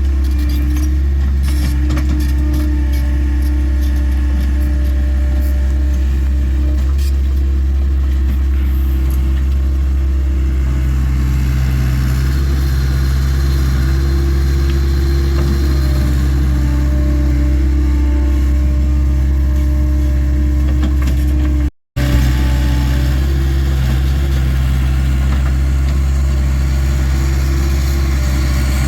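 Takeuchi TL26 compact track loader's diesel engine running steadily under work, with light clicking and rattling over the first several seconds. The sound cuts out for a split second about two-thirds of the way through.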